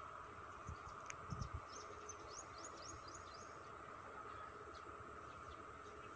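Steady insect trill from the field, with a bird calling a quick run of about eight short falling notes about two seconds in. A couple of soft low thumps come about a second in.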